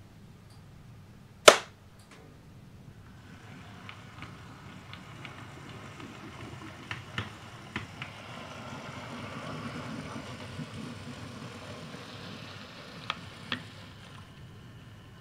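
A single sharp snap about a second and a half in, the loudest sound. Then a model Heljan North Eastern Railway ES1 Bo-Bo electric locomotive runs along the track: a low rumble of motor and wheels that grows and then eases off near the end, with scattered light clicks.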